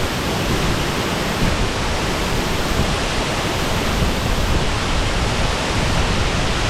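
Waterfall pouring: a loud, steady rushing of falling water.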